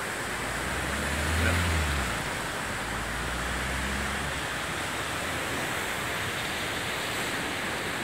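River Calder in record flood: a steady rush of fast, turbulent floodwater pouring through standing waves. A low rumble runs under it from about a second in for a few seconds.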